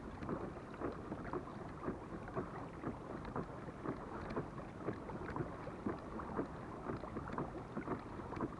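Fishing kayak moving through calm sea under pedal drive: water slapping at the hull in a steady rhythm of about two light knocks a second, with some wind on the microphone.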